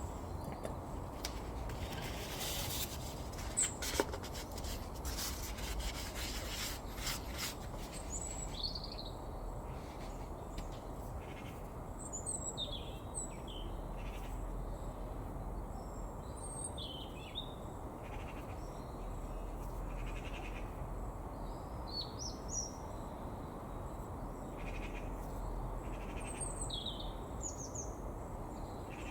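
Small birds chirping on and off in short, quick calls over a steady low background rumble, with a few clicks in the first several seconds.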